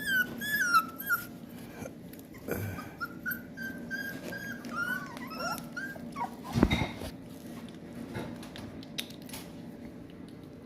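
Rottweiler puppy whining in high, wavering whimpers, in two spells with a short gap between them, then one sudden louder sound about six and a half seconds in.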